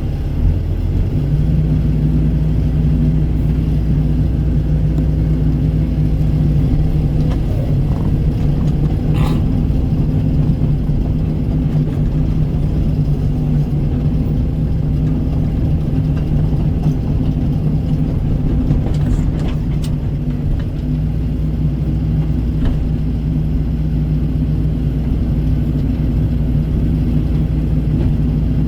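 Kobelco excavator's diesel engine running steadily under load, with a few faint knocks about a third and two thirds of the way through.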